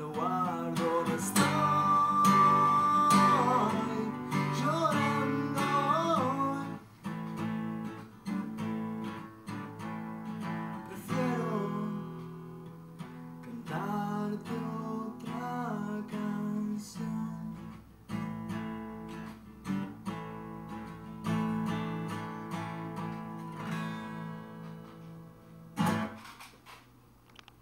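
Acoustic guitar strummed and picked through a song's closing outro after the last lyric, with a man singing a wordless melody over it for the first several seconds and again around the middle. A last sharp strike on the guitar comes near the end.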